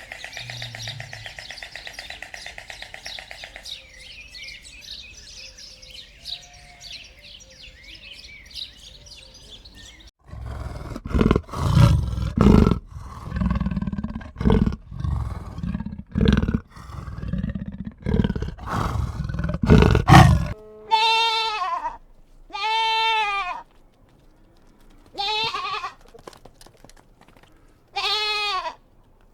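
Farm animal calls: from about ten seconds in, a run of loud, low, rough calls, then near the end about four clear, pitched bleats from a goat or sheep.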